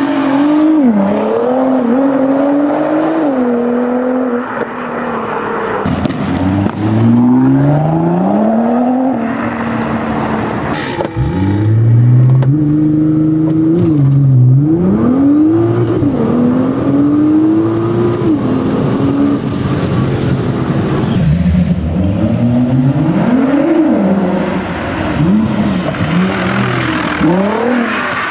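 Nissan GT-R engine and exhaust revving hard, the pitch climbing and then dropping again and again, with a few sharp cracks in between.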